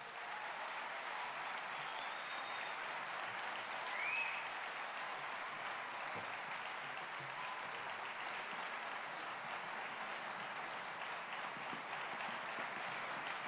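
Audience applauding steadily, with a short rising whistle about four seconds in.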